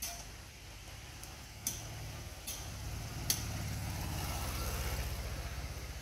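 A motor vehicle's engine running: a low, pulsing rumble that grows louder over the first few seconds and then eases off, with three sharp clicks over it.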